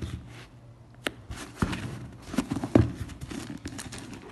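Handling noise of an Air Jordan 1 Low sneaker being turned over in the hands: a string of light knocks and clicks against the table with rustling between them, the loudest knock a little past the middle.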